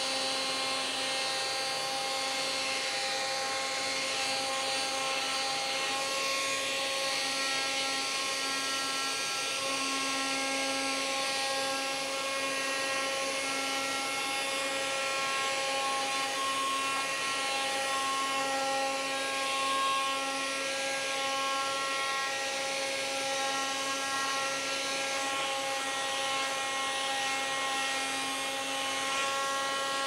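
Parkside 20V cordless oscillating multitool running with a triangular sanding pad and coarse 60-grit sandpaper, sanding a pine board with a steady buzzing hum. A vacuum cleaner draws the dust away through a hose on the tool.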